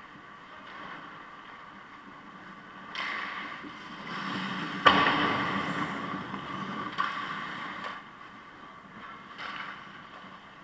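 Hockey skates carving and scraping on the ice as players skate around the net, with a single sharp crack just before five seconds in, the loudest sound, from a puck or stick strike, and a lighter knock about two seconds later, over a steady rink hum.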